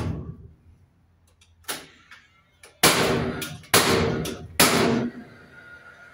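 Cordless nail gun firing nails into timber: a sharp shot right at the start, a lighter one a little later, then three loud shots about a second apart, each with a short ringing tail.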